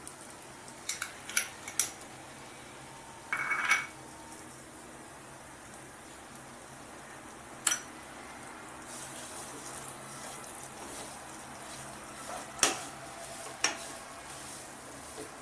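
A wooden spatula knocks and scrapes against a metal kadhai while flour is stirred in ghee, with sharp separate clinks and a short scraping rattle about three and a half seconds in. A faint sizzle of the flour roasting in hot ghee runs under it, a little stronger in the second half.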